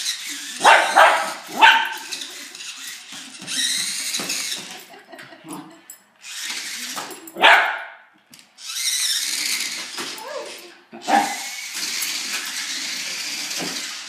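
Wire fox terrier barking in short, sharp barks, three in quick succession about a second in, then one about halfway and another a few seconds later. Between the barks a toy remote-control car's small electric motor whirs in spells.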